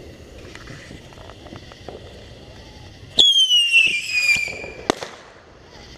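A whistling firework goes off about three seconds in: a loud whistle falls in pitch over about a second and a half, then a single sharp bang follows.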